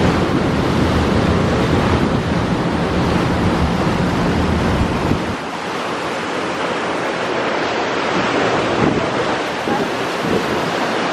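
Wind blowing hard across the microphone on a moving passenger ferry, over the rush of sea water. The deep rumble in it drops away about five seconds in.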